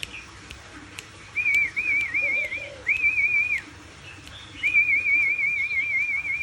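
Caged songbird whistling in short phrases of rapidly wavering high notes, the longest phrase near the end. A faint low cooing comes in briefly about two seconds in.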